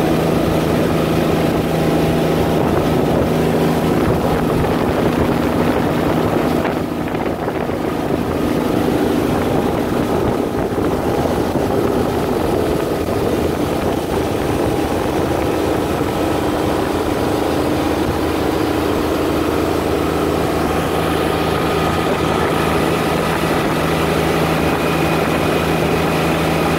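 The Halco 29 motorboat running at cruising speed, its engine droning steadily over the rush of water and wind.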